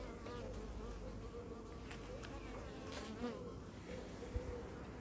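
A calm honey bee colony humming steadily over an open hive, with single bees buzzing close past in short rising and falling whines. A dull bump sounds about four seconds in.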